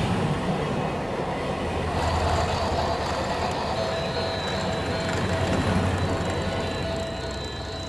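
Battery-powered toy train running along plastic track: a steady thin whine from its small motor over the noise of its wheels on the rails.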